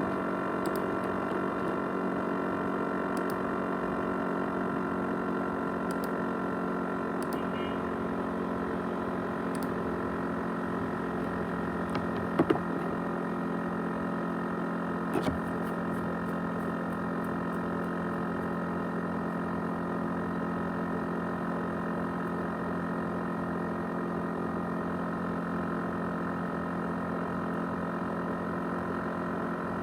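ASUS X543UA laptop running with a steady droning whine of many tones, from its cooling fan or spinning hard drive: the noise its owner calls a jet-engine sound. A few short clicks come through, twice more loudly around the middle.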